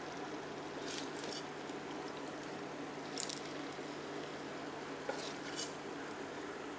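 Banana and wheat-flour batter frying in hot oil in the wells of a multi-well pan, a steady sizzle with a few brief crackles as spoonfuls drop in.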